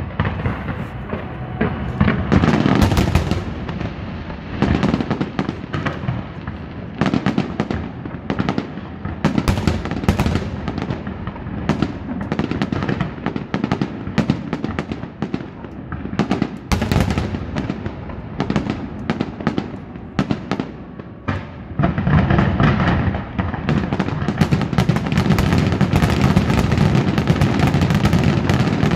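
Fireworks display: a run of separate shell bursts and crackles, building about 22 seconds in into a dense, nearly continuous barrage of bangs and crackling.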